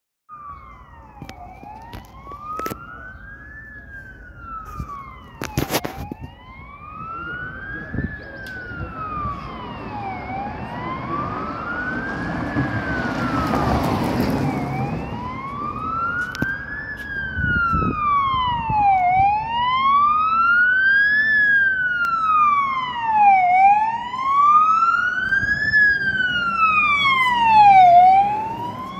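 Wail siren of a Scania P410 fire engine on an emergency run, rising and falling slowly in pitch about every four and a half seconds. It grows louder as the truck approaches and is loudest as it passes near the end, with engine and road noise under it.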